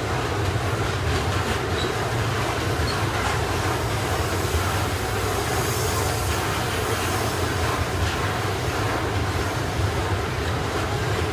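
Long freight train of flat wagons loaded with steel coils rolling past at close range: a steady, unbroken run of steel wheels on rails.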